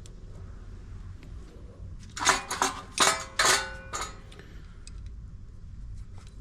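Small loose metal parts jangling and clattering in a few quick, ringing rattles from about two seconds in, lasting about two seconds.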